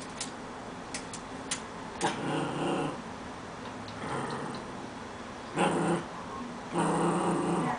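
Yorkshire terrier growling in several short bouts, the last and longest near the end. A few sharp clicks in the first two seconds.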